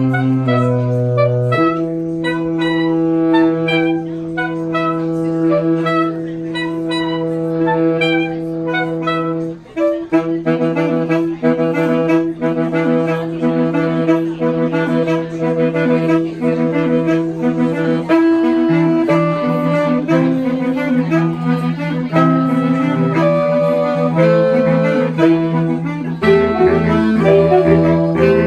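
Saxophone choir playing a piece in several parts: held chords at first, then a short break about ten seconds in, after which moving lines run over a sustained low note. A deeper bass line comes in near the end.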